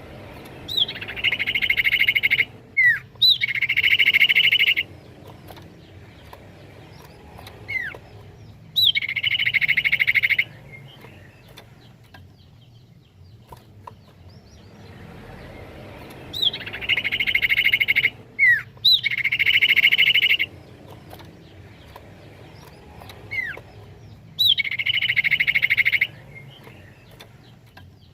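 Common iora (cipoh) calling: short sharp whistled notes followed by fast, high buzzing trills of one to two seconds, in three bouts that repeat as the same sequence about halfway through, as in a looped recording.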